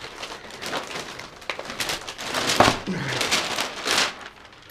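Crinkling and rustling of a paper sheet and a disposable aluminium foil pan as a large meat roll is rolled off the sheet into the pan, with a sharp knock about two and a half seconds in.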